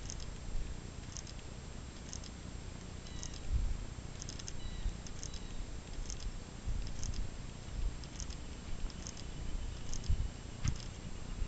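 A horse trotting under saddle on a sand arena: soft hoof falls with faint, regular tack clicks about once a second, over a low steady rumble. A few heavier thumps come a little after three seconds in, near seven seconds, and again towards the end.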